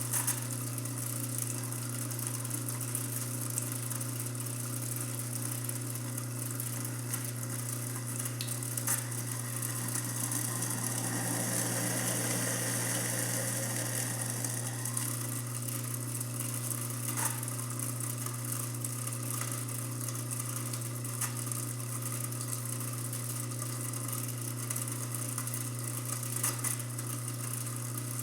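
Garbage disposal motor running steadily with a low hum and a light rattle as it churns a foaming cleaning packet.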